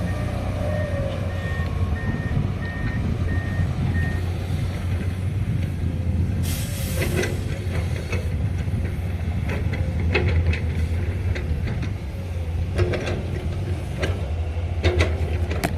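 Heavy diesel engines of trucks and earthmoving machinery running steadily. A reversing beeper sounds about twice a second for the first few seconds. About six and a half seconds in there is a short hiss of an air brake, and scattered knocks follow later.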